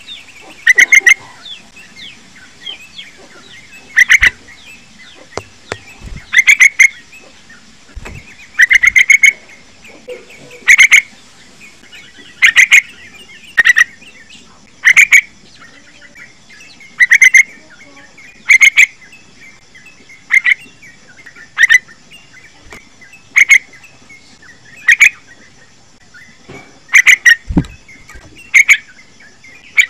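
Young yellow-vented bulbul calling: short, loud chattering phrases repeated every second or two.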